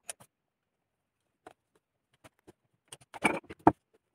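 Scattered light clicks and taps of metal parts being handled on a Zenith-Stromberg 175CD carburettor, ending in a short cluster of louder knocks as a screwdriver goes onto the top cover screws.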